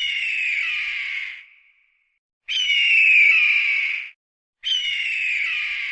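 An animal's harsh, drawn-out cry, heard three times, each call lasting about a second and a half and falling slightly in pitch before trailing off.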